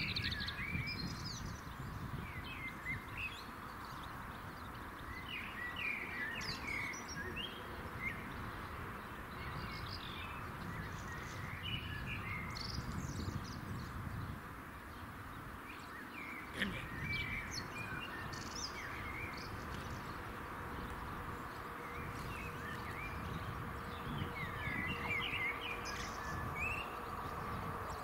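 Small birds chirping in short, scattered calls over a steady low background rumble, with a faint steady tone underneath.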